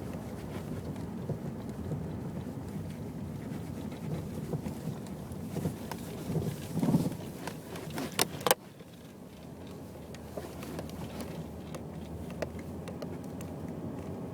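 Mazda Millenia driving with steady road rumble in the cabin, with a cluster of sharp knocks from the front-right suspension about six to eight and a half seconds in, after which the noise drops suddenly. The knock persists after new sway-bar links, bushings and ball joints, and the shop diagnostics have not found its cause.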